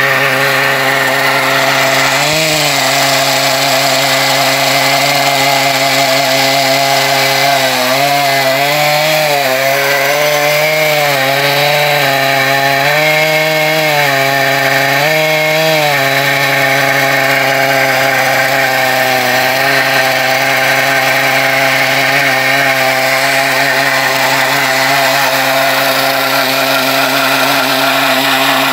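Stihl chainsaw running at full throttle in a chainsaw mill, ripping lengthwise through an ash log. Its engine note is steady, with a few brief dips in pitch that recover through the middle as the saw is pushed through the wood.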